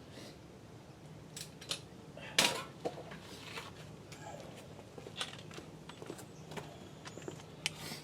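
Metal tools and parts clinking and knocking during hand work on a vehicle's rear axle, with a louder clank about two and a half seconds in and lighter clicks scattered through.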